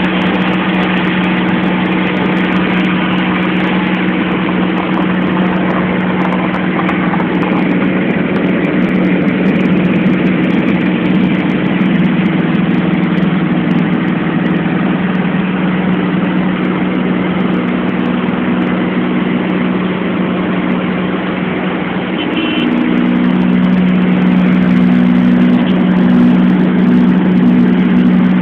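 Light aircraft's piston engine and propeller droning steadily, heard from inside the cabin. About three-quarters of the way through, the engine note shifts and gets louder as power is brought up.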